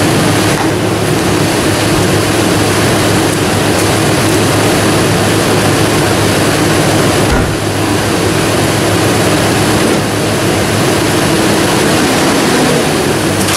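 Ford Ranger pickup's engine idling steadily, with a constant low hum under a broad hiss.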